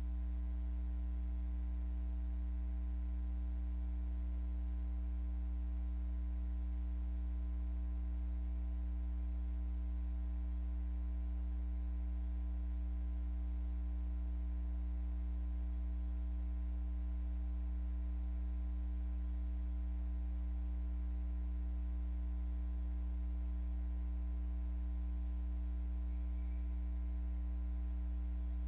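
Steady low electrical mains hum, a constant buzz with fainter higher overtones, unchanging throughout.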